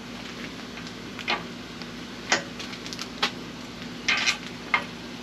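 Scattered sharp clicks and clinks of tools and hardware being handled on a steel bumper, about six at irregular intervals with a quick cluster near the end, over a steady low hum.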